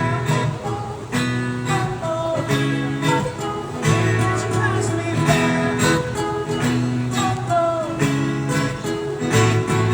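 Live pop-rock band playing amplified, guitar chords to the fore over bass, during an instrumental gap between sung lines.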